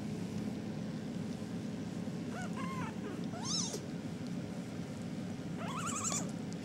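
Young RagaMuffin kittens, about four and a half weeks old, mewing: three short, high calls that bend in pitch, the first about two seconds in and the last near the end.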